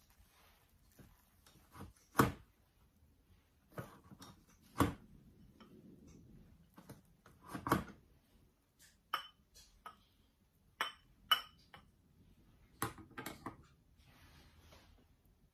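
Plastic rice paddle knocking and scraping against a mini rice cooker's inner pot and a china bowl as cooked rice is scooped out: scattered sharp clacks, some with a short ringing clink.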